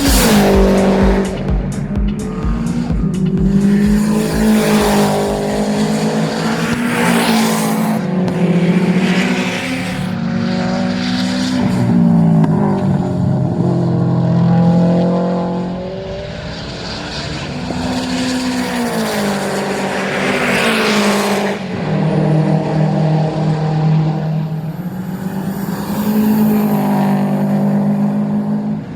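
Subaru race car engine at full throttle on track, revving up and dropping back repeatedly as it shifts through the gears.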